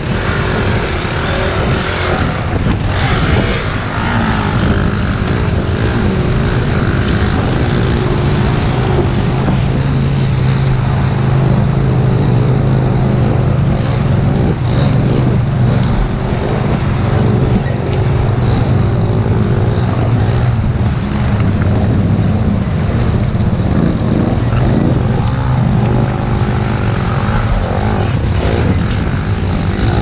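ATV engine running steadily at low revs while fording a river, with water splashing and rushing around the wheels.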